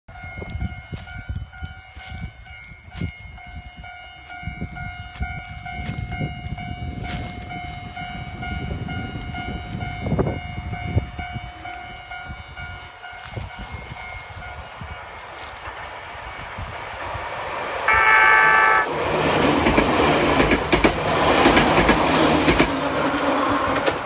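Level-crossing warning bell ringing in a steady repeated ding. About three-quarters of the way through, a Nagano Electric Railway local train gives a short horn blast, about a second long, then runs through the crossing with a loud rush of wheel and running noise.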